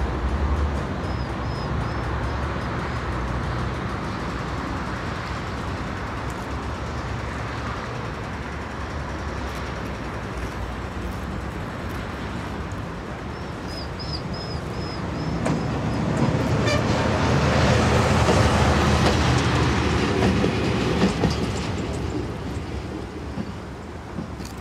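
A train running along the tracks: a continuous rumble of wheels on rails that swells to its loudest about two thirds of the way through, then fades near the end. Short series of high squeaks come near the start and again in the middle.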